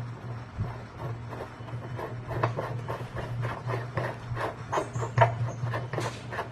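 Irregular knocking and scraping of washing-machine parts being handled and worked on, over a steady low hum.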